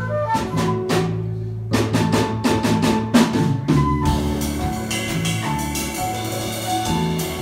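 Live jazz combo playing an instrumental intro: drum kit strikes over electric bass, with flute and keyboard. The band's sound fills out about four seconds in.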